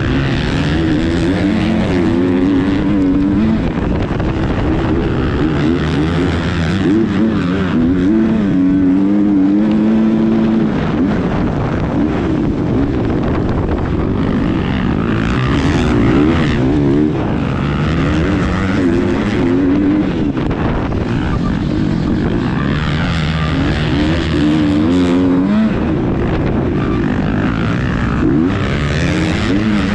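Motocross bike engine at full race pace, revving up and dropping back again and again through corners and gear changes, with other bikes close ahead.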